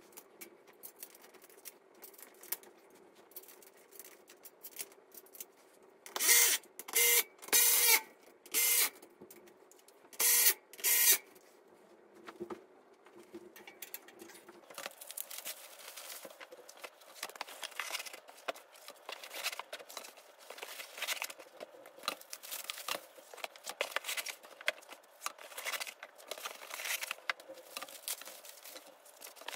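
A small electric screwdriver whirs in six short bursts, about 6 to 11 seconds in, while the dresser's metal frame is being screwed together. Later come light clicking and the rustle of plastic wrap as wrapped fabric drawers are handled.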